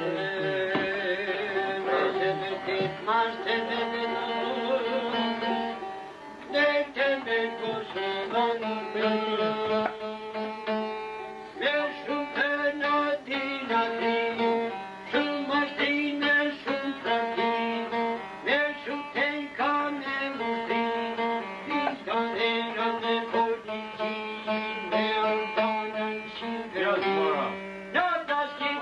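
A plucked string instrument playing a folk melody in quick runs of notes.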